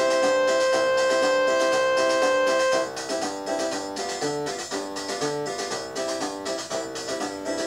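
Background keyboard music: a held chord for about three seconds, then a quick run of short, plucky notes.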